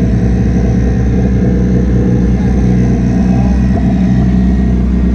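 Car engine idling steadily at low revs.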